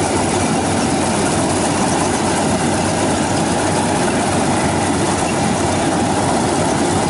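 Rice combine harvester running steadily while cutting and threshing a rice crop: a continuous, even engine and machinery din with no change in pace.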